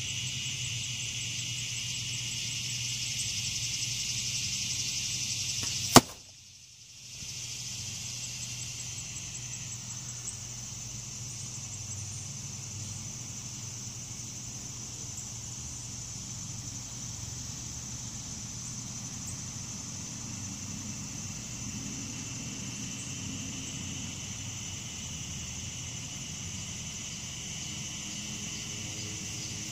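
A broadhead-tipped arrow hitting a foam block target: one sharp, loud smack about six seconds in.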